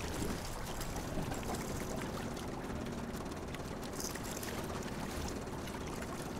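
Steady rush of river water around a boat, with a faint steady low hum underneath.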